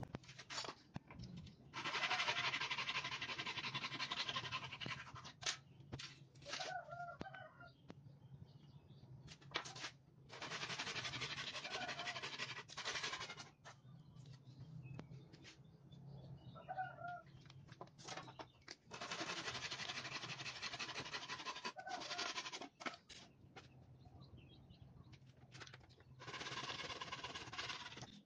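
A handsaw cutting through wooden strips in four separate spells of rasping strokes, each about three seconds long. Short bird chirps come in the pauses between cuts.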